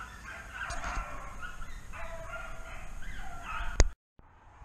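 A pack of rabbit hounds baying on a trail, several voices overlapping. Near the end a single sharp crack, the loudest sound, and then the sound cuts off abruptly.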